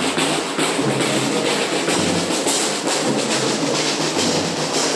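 Drums playing a percussion rhythm, with many rapid strokes.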